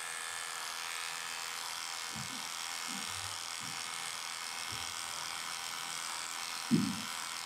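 Electric dog grooming clippers with a 7F blade running steadily with an even buzz, shaving through a Puli's matted coat. A few soft low knocks, and one louder thump near the end.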